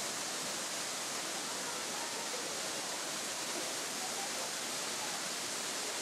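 Waterfall cascading down a rock face: a steady, unbroken rush of falling water with a bright hiss.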